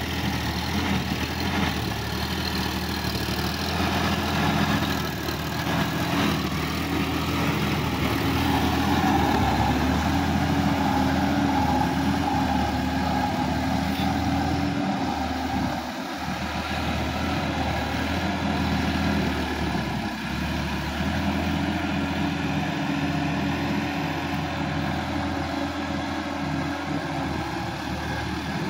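Sonalika DI-50 RX tractor's diesel engine running under load as the tractor works through the mud of a flooded paddy field. The engine runs steadily, swells a little in the middle and dips briefly a few seconds later.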